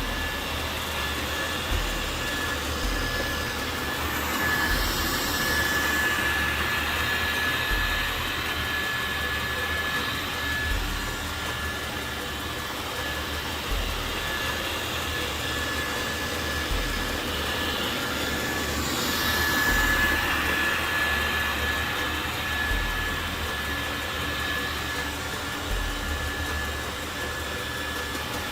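Dreame L10 Pro robot vacuum running while it vacuums and mops, a steady whirring from its suction fan with a thin high whine on top. It swells louder and hissier twice, about four seconds in and again near twenty seconds, as it passes nearer, with a low pulse about every three seconds underneath.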